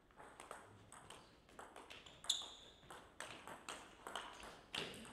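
Table tennis rally: the ball clicking back and forth off rubber bats and the table top, a quick run of sharp ticks, with one louder, ringing ping about two seconds in.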